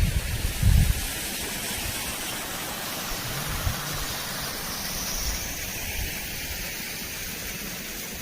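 Steady rushing of a small waterfall, water pouring over rocks, with a brief low rumble near the start.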